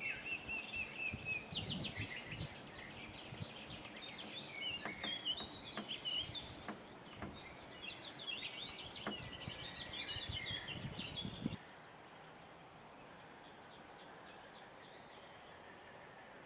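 Several songbirds singing and calling over one another, one with a fast repeated trill at the start. The birdsong cuts off suddenly about two-thirds of the way in, leaving only a faint steady background.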